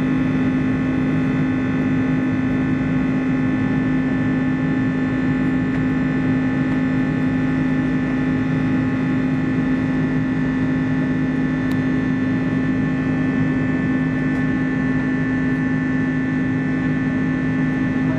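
Steady cabin drone of an Airbus A330-200 in flight, heard from inside: the Pratt & Whitney PW4168A engines humming at a constant pitch over a bed of air noise.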